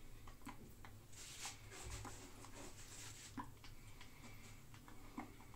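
Faint low hum with scattered soft clicks and a breathy rustle for about two seconds, starting a second in: small hand, sleeve and mouth sounds of a man signing while holding a safety razor.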